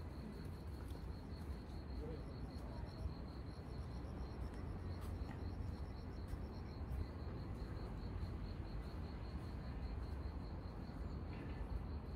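Crickets chirping in a steady, even pulse, over a low steady rumble of background noise.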